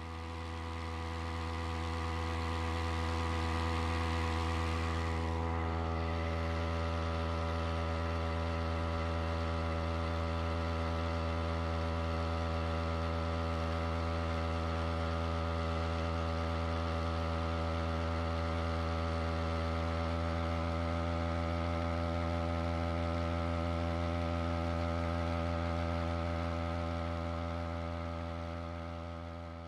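Small brush-cutter-type engine driving a homemade outboard, running steadily at constant throttle with an even drone. It fades in over the first few seconds and fades out at the end.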